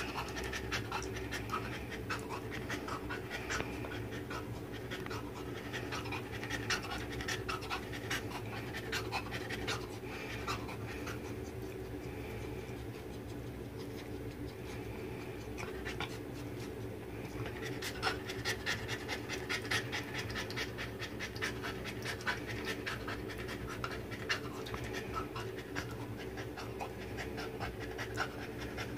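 Cocker spaniel licking and nibbling at its own fur and leg, a rapid, irregular run of wet clicks and smacks, with panting breath. A steady low hum lies underneath.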